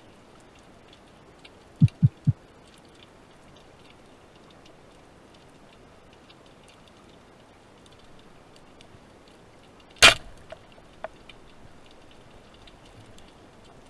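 Band-powered speargun fired underwater about ten seconds in: one sharp crack as the rubber bands release, then a few small clicks. About two seconds in, three quick low thumps; faint crackling ticks throughout.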